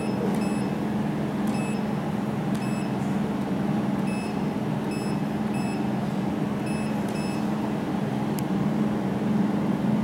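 Jewelry laser welding machine running with a steady low hum, while its touchscreen gives short beeps as number keys are tapped, about eight times. A single click comes near the end.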